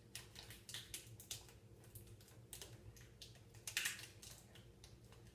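Faint, irregular clicks and rustles of small objects being handled, with a louder rustle just before four seconds in.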